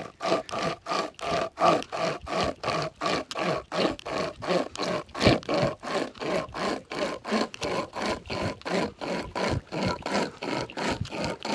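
Nordic Pocket Saw hand chainsaw pulled back and forth through a hard, sound log taken for maple, the chain rasping at about three strokes a second with a faint ring in each stroke.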